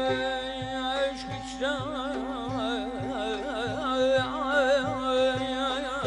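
Background music: a steady drone under a melody with a wide, wavering vibrato that comes in about one and a half seconds in, over a regular low drum beat.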